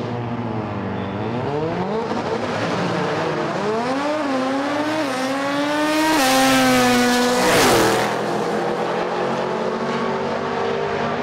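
Drag-racing car engine under full throttle, its pitch climbing and dropping back at each gear change, then held high before falling sharply as the car passes close by about three-quarters of the way through.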